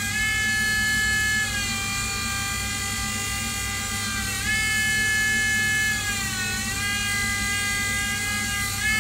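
Skate sharpening machine's grinding wheel running against a figure skate blade, taking the nicks and unevenness off the edge. It gives a steady high whine whose pitch drops and rises several times as the blade is worked along the wheel.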